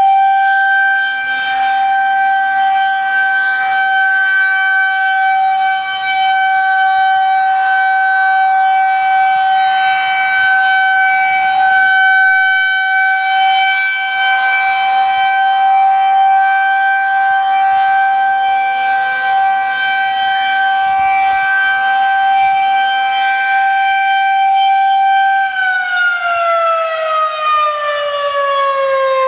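Federal Signal 2001-130 rotating electromechanical outdoor warning siren sounding its steady alert tone for a weekly test, its loudness swelling and dipping slightly as the horn turns. A few seconds before the end the tone starts to slide steadily down in pitch as the siren winds down.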